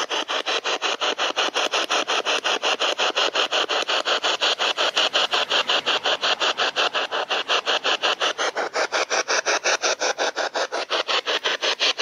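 Spirit box: a handheld radio sweeping rapidly through stations, giving a steady hiss of static chopped into short, regular bursts about eight times a second.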